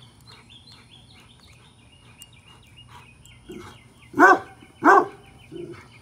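A dog barking: two loud barks about half a second apart a little after four seconds in, with softer barks around them. A faint, steady high chirping runs behind.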